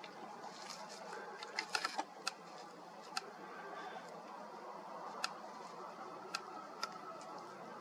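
Faint steady background noise with scattered sharp clicks, several close together about two seconds in and a few single ones later.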